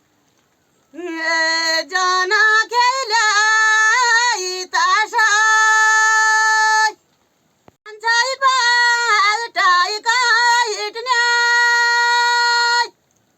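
A single high voice singing unaccompanied: two melodic phrases, each ending in a long held note, with a short pause between them.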